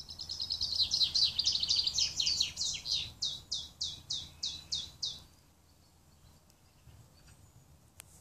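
A songbird sings one long phrase. A fast, loud, high trill slows into a run of separate falling notes, about four a second, and stops about five seconds in.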